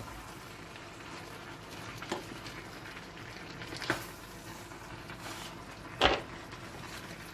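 Vegetables frying gently in a paella pan, a steady soft sizzle, with three sharp knocks of a utensil against the pan, the loudest about six seconds in.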